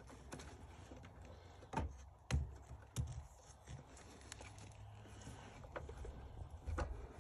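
Handling noise of wires and parts being worked under a car dash: a few scattered knocks and light clicks, the loudest around two to three seconds in and again near the end.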